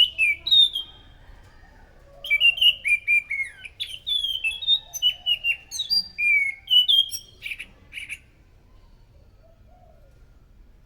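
Anis macan thrush singing: rapid runs of loud whistled notes, many sliding down in pitch. A short phrase opens, then a longer one starts about two seconds in and stops about eight seconds in.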